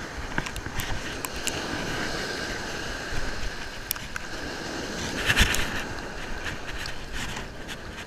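Wind buffeting the microphone over the wash of surf on the beach, with scattered small clicks and knocks from handling and a louder gust or knock about five seconds in.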